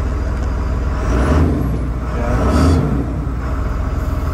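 Freightliner MT-55's 5.9-litre Cummins inline-six diesel idling steadily, heard from inside the cab as an even low rumble. Two brief louder swells of noise come about a second and two and a half seconds in.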